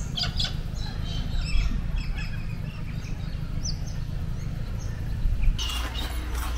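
Birds chirping and calling in short scattered notes, over a steady low rumble of wind on the microphone. Near the end the sound changes and there is a brief burst of rustling.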